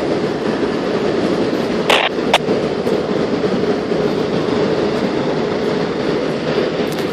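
FDNY fire engine's diesel engine running steadily in the firehouse bay, a dense rumble. A short hiss and a sharp click come about two seconds in.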